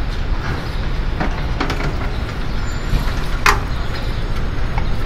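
Steady low rumble of background traffic and stall noise, with a few short clinks as a metal serving spoon works in a large aluminium biryani handi, the sharpest about three and a half seconds in.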